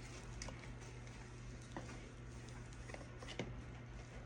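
Faint, scattered clicks and taps of a small potion bottle and its packaging being handled and lifted out of the box, over a low steady hum.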